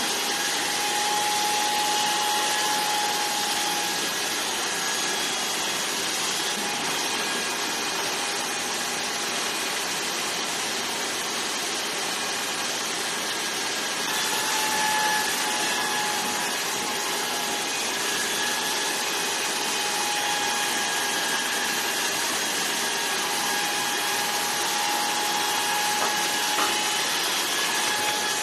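Electric hair clippers running steadily during a head shave, a continuous motor noise with a faint whine that wavers and fades in and out.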